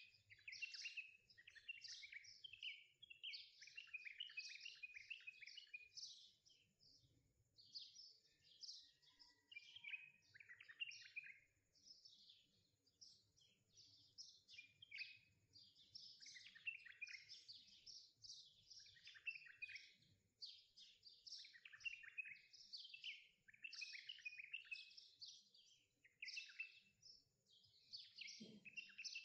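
Quiet birdsong: many small birds chirping and twittering in quick, overlapping bursts.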